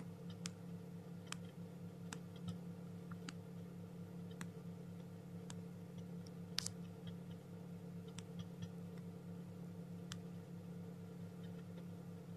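A chick tapping at its eggshell from inside while hatching: about ten sharp, irregular clicks, the loudest about two-thirds of the way through, over a steady low hum.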